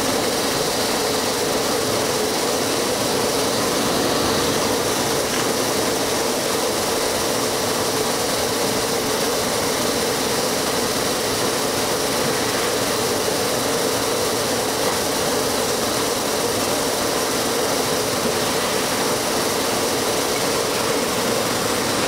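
Brush-roller potato peeling and washing machine running steadily: the motor and turning rollers hum and rumble, mixed with the hiss of the water spray and potatoes tumbling over the brushes.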